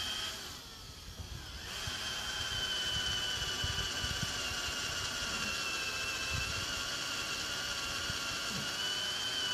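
Old electric hand drill running as it bores a drain hole into the metal tube of a go-kart frame. Its high, steady motor whine sags for about a second near the start, then picks back up and holds.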